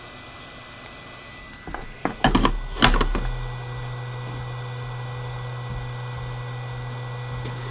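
A handful of sharp clicks and knocks on the workbench about two to three seconds in, then a steady low electric hum sets in and runs on.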